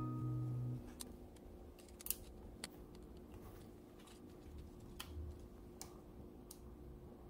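Background music stops just under a second in. Then come scattered small plastic clicks and taps as a battery is slid into a Canon PowerShot G7 X Mark II and its battery door is pressed shut, the sharpest click about two seconds in.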